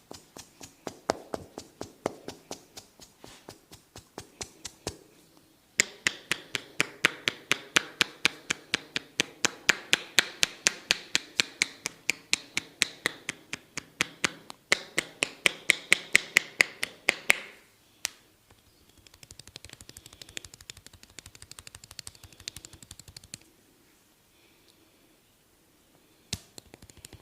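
Percussive massage strokes: the barber's hands striking the client in quick, sharp, evenly paced slaps, about five a second. They get louder after a few seconds and stop sharply about 17 seconds in, then give way to a softer, faster patter for several seconds.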